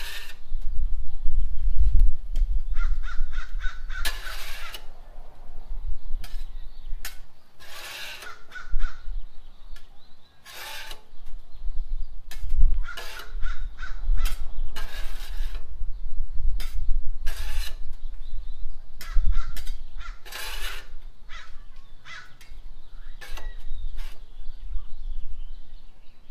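Metal spatula scraping and clanking across a Blackstone steel griddle top, pushing leftover cooked ground beef into a tray: a string of short, sharp scrapes at an irregular pace, some with a brief ringing squeal.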